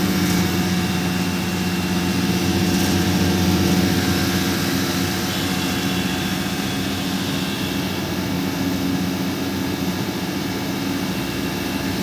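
Window air conditioner's compressor and fan motor running with a steady hum, the unit just topped up with refrigerant gas.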